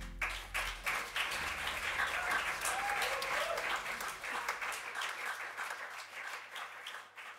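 Small indoor audience applauding right after the band's last chord, many hands clapping at once, while a low bass note rings out underneath; the clapping thins and fades over the last couple of seconds.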